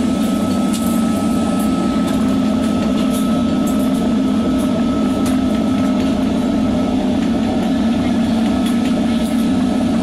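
Workshop machinery running with a steady, loud drone and a thin high whine, with a few faint light clicks over it.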